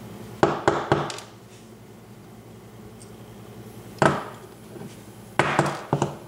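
Sharp small knocks and clicks from a seven-pin BEST cam lock being tapped and handled to work its pins out: three in quick succession about half a second in, a single one at about four seconds, and another cluster near the end.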